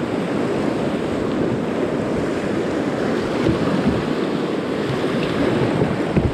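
River rapid: whitewater rushing and splashing around an inflatable pontoon raft as it runs through, with wind buffeting the microphone. A steady, loud rush of water.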